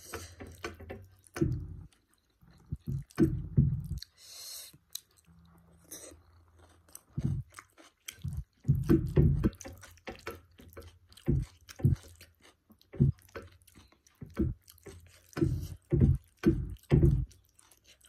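Close-miked chewing of paratha with paneer curry: wet mouth sounds in irregular runs of quick strokes with short pauses between them. There is a short breathy hiss about four seconds in.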